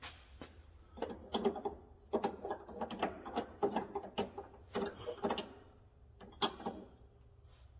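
Quick metallic clicking and rattling as the threaded adjuster collars on a Viking rear coilover shock are worked by hand with a tool to lock them down. The clicking starts about a second in and stops shortly before the end.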